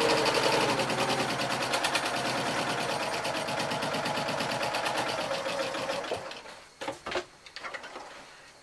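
Janome 780DX sewing machine stitching at a fast, even pace, then slowing and stopping about six seconds in. A few short knocks and rustling follow as the fabric is pulled from the machine.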